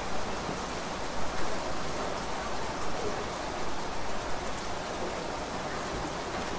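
Steady rain falling, an even hiss with a few louder patters about a second in.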